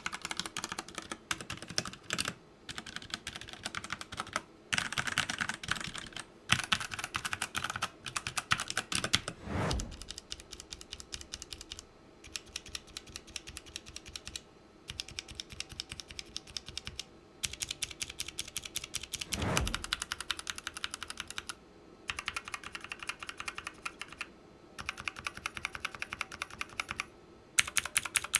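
Typing on a Redragon K530 60% mechanical keyboard: fast runs of clacking keystrokes in bursts of a few seconds with brief pauses between them, and twice a heavier, longer stroke.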